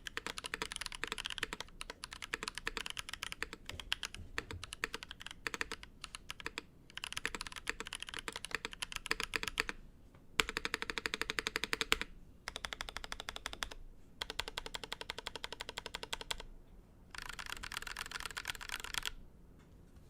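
Fast typing on a Bacca60 polycarbonate custom mechanical keyboard: a rapid run of key clacks with a few brief pauses, stopping shortly before the end.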